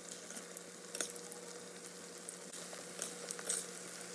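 Batter-coated cauliflower florets deep-frying in hot oil in a steel pan: a steady sizzle full of small crackles, with a few sharper pops, as a metal spoon turns the florets.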